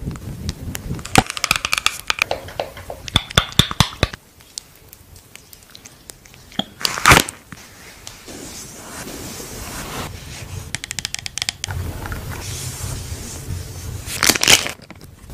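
Close-miked ASMR handling sounds: dense crackling clicks, then soft rubbing of a makeup wipe over the face, and near the end a foil sachet crinkling and tearing open.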